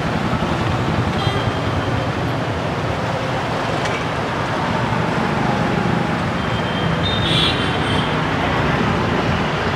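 Steady road traffic from motorbikes, scooters and cars passing, with short high horn beeps about a second in and again near the end.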